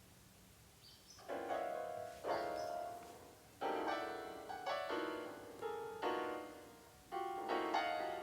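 Slow, sad piano music: after about a second of quiet, chords are struck roughly once a second, each left to ring and fade.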